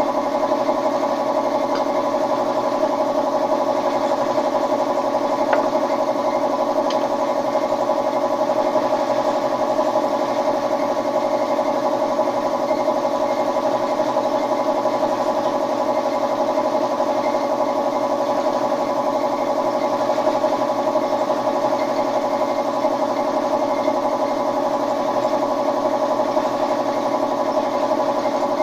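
Air compressor running steadily with an even, unchanging drone, feeding air to a paint spray gun.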